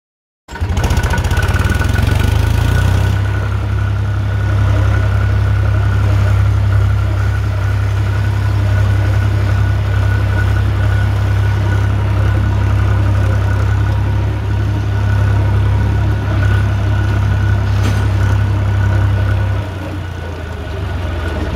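HMT tractor's diesel engine running steadily while the tractor is driven, heard from the driver's seat. It starts after a moment's silence and its level drops near the end.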